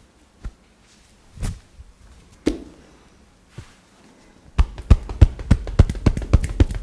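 Hands striking a person's body in percussive massage: a few separate slaps or thumps, then, past halfway, a fast rhythmic pounding of about four or five strikes a second.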